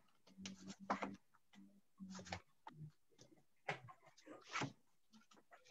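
Sheets of patterned craft paper being leafed through and shuffled by hand: a run of faint, brief rustles and swishes as the sheets slide over one another.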